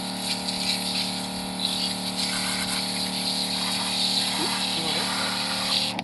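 Portable battery-powered pressure washer running: its electric pump hums steadily while the water jet hisses as it rinses a deer carcass.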